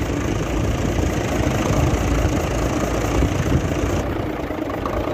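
Nissan FE6 six-cylinder diesel truck engine idling steadily on fresh oil, still with heavy crankcase blow-by pressure, which the mechanic suspects comes from the number one cylinder.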